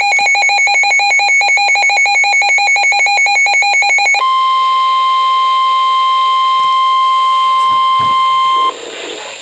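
Weather radio alert tones. First comes a rapidly pulsing electronic alarm beep. About four seconds in, it switches to one steady, single-pitched tone, the NOAA Weather Radio 1050 Hz warning alarm tone that marks a warning. The steady tone cuts off near the end, leaving fainter radio hiss.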